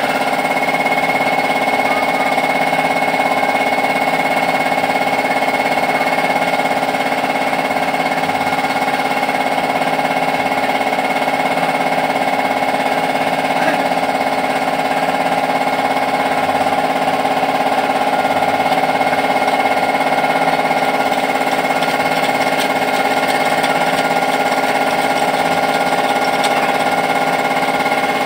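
A motor running steadily at constant speed, with a steady high whine over a lower hum and no change in pitch.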